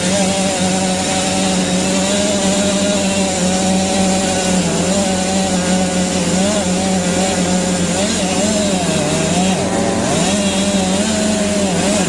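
Gas chainsaw running at full throttle, cutting through a large tree trunk; the engine pitch wavers and dips several times as the chain bogs down in the cut.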